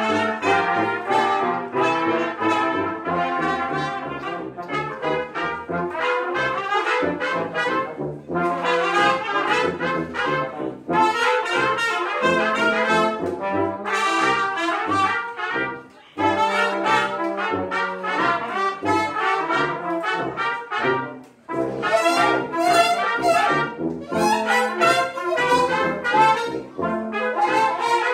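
Brass quintet of trumpets, French horn, trombone and tuba playing a lively piece together, with brief breaks between phrases about halfway through and again a few seconds later.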